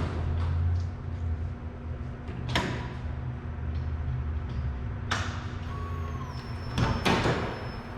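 Turbocharged KA24DE four-cylinder engine of a Nissan 240SX idling steadily, with a few sharp knocks over it, the loudest pair near the end.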